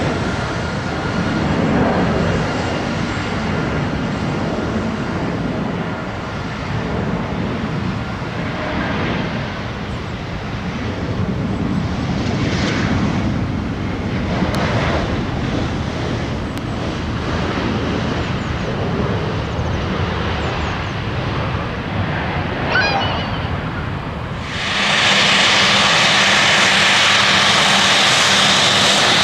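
Jet airliner engine noise: a steady rumble that jumps suddenly to a much louder, even hiss about 24 seconds in.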